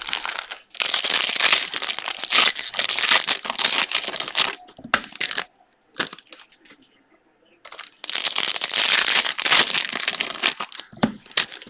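Foil wrappers of baseball card packs crinkling and tearing as they are handled and ripped open, in two long bouts with a lull of a couple of seconds between them.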